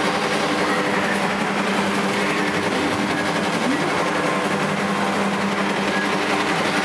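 Steady din of amusement-arcade machines: a low, even machine hum with a constant hiss over it, without breaks or distinct events.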